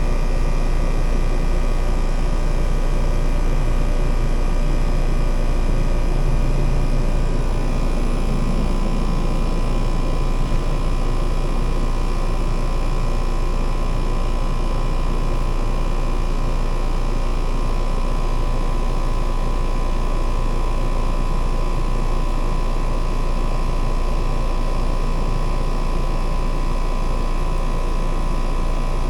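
Heat pump outdoor unit running steadily in heat mode: compressor and fan giving a constant low hum with a few steady tones above it.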